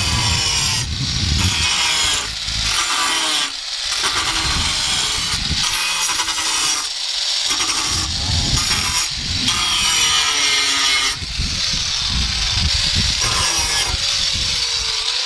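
A saw cutting in repeated strokes with short breaks between them, freeing the stock decklid trim panel from the car.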